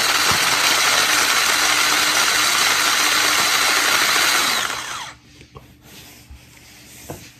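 Cordless mini electric garlic chopper running, its blades whirring through carrot pieces in the plastic jar, then winding down with a falling pitch about four and a half seconds in. A few light clicks from handling the jar follow.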